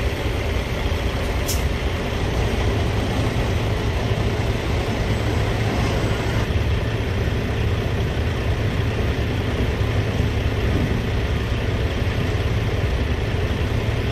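Diesel semi-truck engine running steadily at idle, a constant low rumble.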